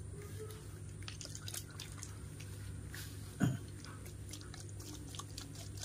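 Baby macaque sucking on its own fingers: a run of small wet smacking clicks. About three and a half seconds in comes one short, louder low sound that falls in pitch.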